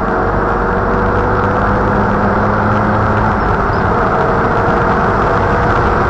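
Engine and road noise inside the cabin of a 1987 Toyota 4Runner on the move, picked up by its dashcam's built-in microphone: a loud, steady rumble with a faint engine hum underneath.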